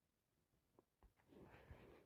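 Near silence: quiet room tone with a couple of faint clicks a little under a second in.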